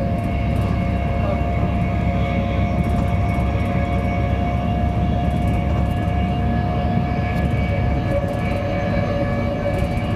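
Interior running noise of a Class 390 Pendolino electric train travelling at speed: a steady low rumble from the wheels and rails with a steady faint whine held over it.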